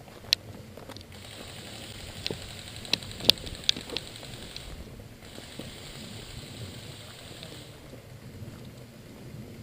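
Electric airsoft guns firing full-auto in two rapid, clattering bursts, with a few sharp cracks early on and in the middle.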